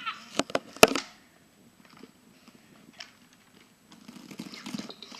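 Handling noise: two sharp knocks within the first second, then faint rubbing and crinkling.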